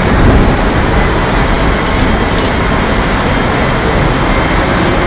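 Loud, steady factory background noise: an even rush and rumble with no distinct machine rhythm, and a few faint light clicks.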